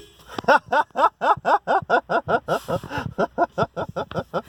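A man laughing hard: a long run of loud 'ha' bursts, about four a second.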